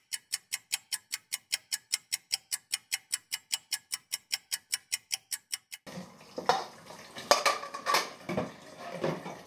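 A clock ticking fast and evenly, about five ticks a second, for nearly six seconds, then stopping suddenly. Then dishes and utensils clatter, with several sharp knocks.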